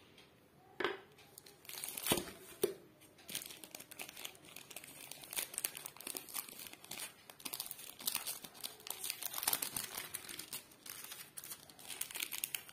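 Thin tracing paper crinkling and rustling as it is unwrapped and pulled off a mobile phone, with a few sharper clicks in the first three seconds.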